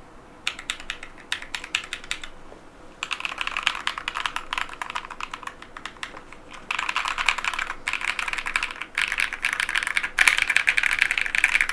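Epomaker Tide75 mechanical keyboard with Epomaker Lemon switches being typed on: separate key clicks at first, then from about three seconds in dense, fast bursts of key presses that grow loudest near the end.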